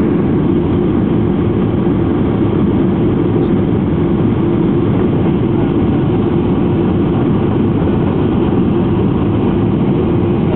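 Steady cabin noise inside a Boeing 737-800 on approach with flaps extended: a constant low drone of its CFM56-7B engines and airflow over the airframe, heard through the fuselage from a seat behind the wing.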